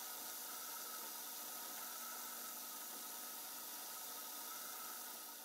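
Faint steady hissing fizz of fine gas bubbles coming off a fishing spoon during low-current nickel electroplating in a jar of nickel solution.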